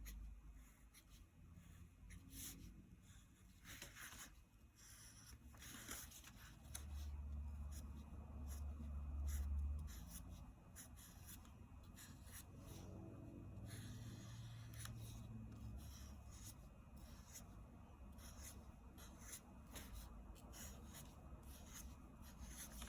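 Black marker drawing on paper: faint, scratchy short strokes, the outline inked in separate pieces rather than one continuous line. A low hum rises for a few seconds near the middle.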